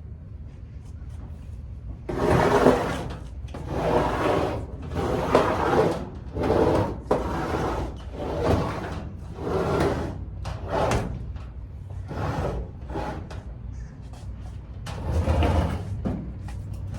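A run of short scraping and sliding noises, about a dozen bursts roughly a second apart, as a heavy household appliance is shoved along the floor in short pushes.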